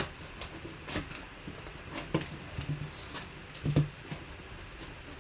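Cardboard box and foil trading-card packs being handled: a string of light knocks, taps and rustles, the strongest about two-thirds of the way through.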